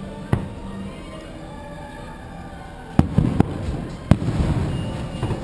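Fireworks shells bursting: a single sharp bang early, then a cluster of three loud bangs about three seconds in, followed by a rumbling tail. Show music plays underneath.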